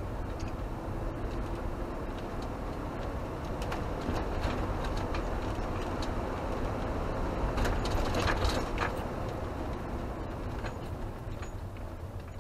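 Motorhome driving, heard from inside the cab: a steady engine and tyre rumble, with a cluster of clicks and rattles about eight seconds in.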